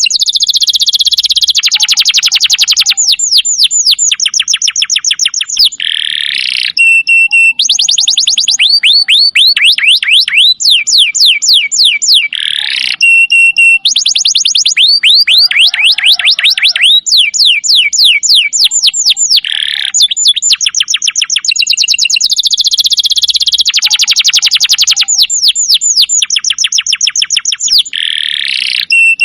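Domestic canary singing a continuous song of fast trills. The trills are made of rapidly repeated descending notes, broken by rolls and short held whistles.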